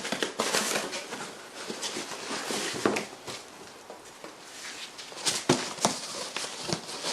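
Hands handling packaging and parts at a workbench: rustling, with scattered sharp knocks and clicks, a cluster of them near the end.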